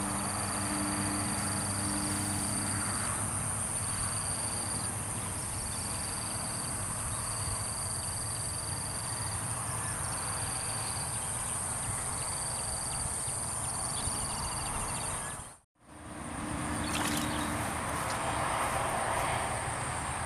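Outdoor paddy-field ambience: a steady high-pitched insect chorus over a broad noise of wind and rustling. It cuts out abruptly for a moment about three-quarters of the way through, then carries on.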